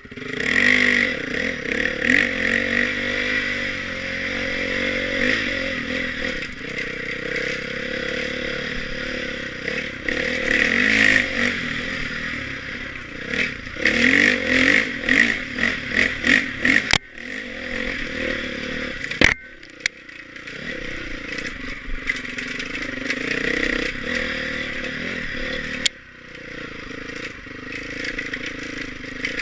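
Off-road dirt bike engine revving hard as it climbs a rocky trail, the throttle opened and closed in quick bursts through the middle, with scraping and clattering from the bike over rocks and brush and a couple of sharp knocks.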